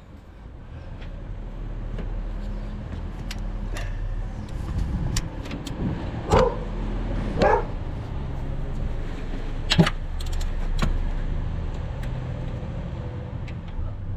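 Hand tools clicking and clinking on metal while the bolts of a clutch slave cylinder are undone, over a steady low hum. Two louder short pitched sounds come a little past the middle.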